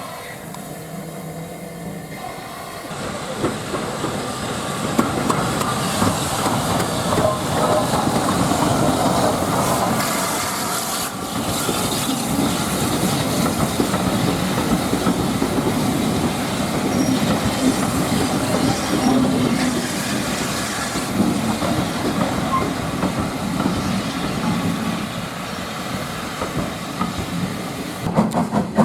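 A steam-hauled train passing, its wheels clattering over the rail joints with a hiss of steam; it grows louder about three seconds in.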